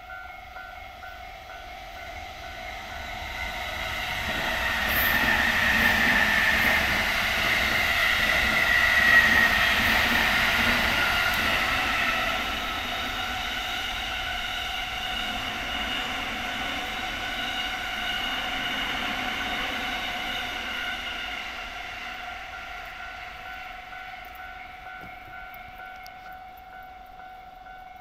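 Train passing a level crossing, loudest about 5 to 12 seconds in, then running on more quietly and fading toward the end. The crossing's warning bell rings steadily throughout.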